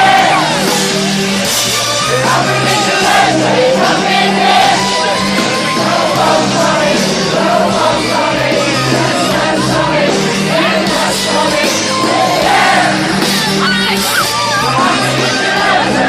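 Loud live pop-rock band performance with amplified singing over a steady bass line, with crowd shouting and yelling along.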